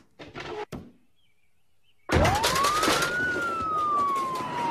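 Cartoon ambulance siren: one wail that rises quickly, then falls slowly, starting suddenly about two seconds in over loud noise, after a short near-silent pause.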